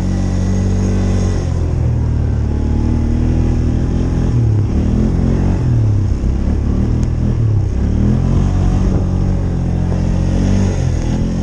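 Small vehicle engine running under load through deep snow, its speed rising and falling repeatedly as it is throttled up and eased off.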